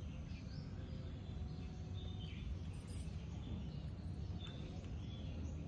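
Small birds chirping now and then over a steady low rumble of outdoor background noise.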